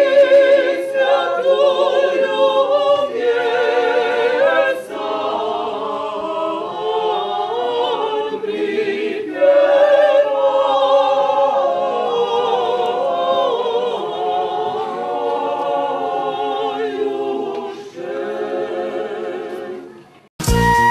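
Mixed church choir singing a cappella, several voices in harmony with vibrato, in phrases that break off and resume. Near the end the singing stops and recorded music cuts in abruptly.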